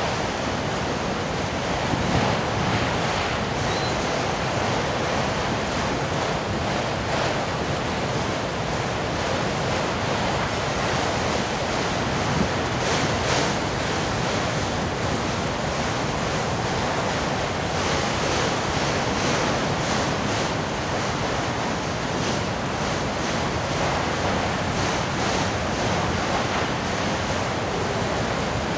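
Autorack freight cars of a departing train rolling past: a steady rushing noise of steel wheels on the rails, with a few faint clicks now and then.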